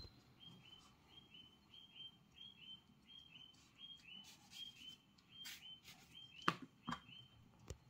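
Faint bird chirping: short high notes on one steady pitch, repeated evenly about three times a second. A few soft clicks come near the end, the sharpest about six and a half seconds in.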